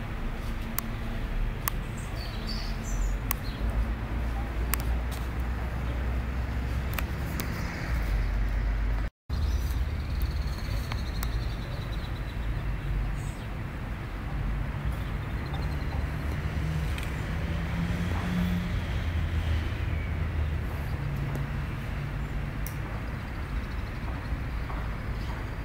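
Outdoor town ambience: a steady low rumble of distant traffic, with a few faint bird chirps. The sound drops out for a split second about nine seconds in.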